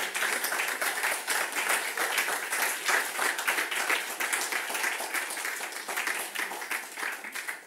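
Audience applauding: many hands clapping in a dense, steady stream that eases off near the end.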